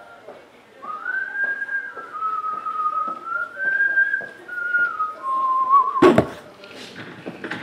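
A person whistling a tune: one clear melody line of held notes stepping up and down for about five seconds. Then a sharp knock and rustle about six seconds in as a cardboard box of trading cards is set down on the table.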